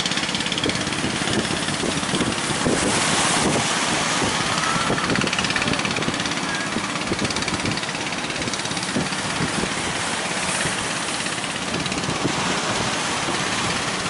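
Fishing boat engines running through heavy surf, against a steady rush of breaking waves and wind.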